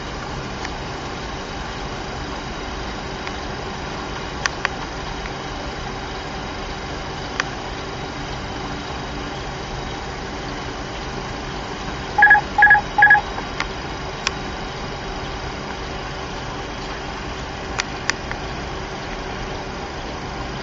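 Steady cockpit noise of a jet on an ILS approach: airflow and engine hum with a faint steady tone and a few light clicks. About twelve seconds in, three short electronic beeps sound in quick succession from the cockpit's alerting system.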